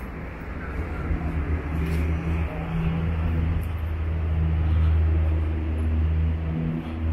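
A motor vehicle's engine running with a low, steady hum that grows louder to a peak about five seconds in, dips briefly near the end, then picks up again.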